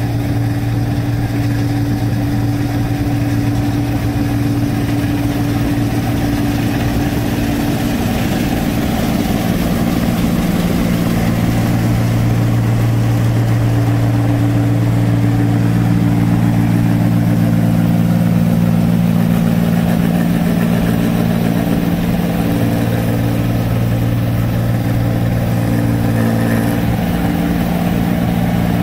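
New Holland 1545 combine harvester running while it cuts and threshes rice: a loud, steady machine drone made of several level tones, swelling slightly in the middle as the machine comes close.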